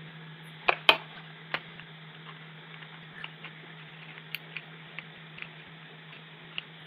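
Small clicks and light taps of wires and hand tools being handled on a soldering bench, with a cluster of sharper clicks about a second in and fainter scattered ticks after, over a steady low hum.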